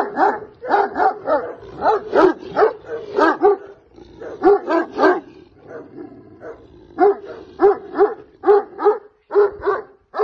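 Large volkodav-type guard dog barking repeatedly, about two barks a second, easing off briefly around six seconds in before barking again.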